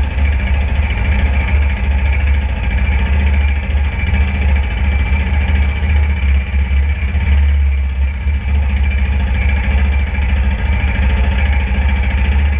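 KTM RC 390's single-cylinder engine running at low revs with a steady, pulsing low note as the bike rolls slowly.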